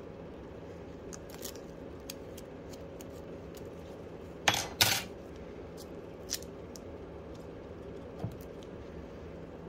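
Small clicks and taps of phone parts and tools being handled during a battery swap, with two short, loud, rasping clicks about half a second apart around the middle, over a steady low hum.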